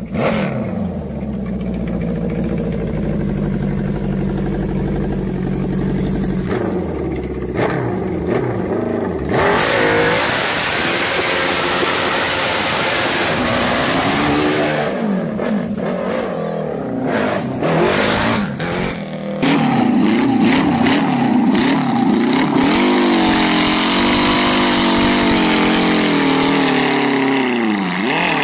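Powerful engines revving and running in a run of short clips, their pitch rising and falling, with sudden changes of sound every few seconds.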